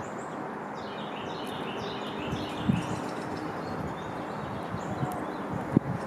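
Small birds chirping in quick repeated notes over a steady low background rumble, with two short knocks, one about halfway through and a louder one near the end.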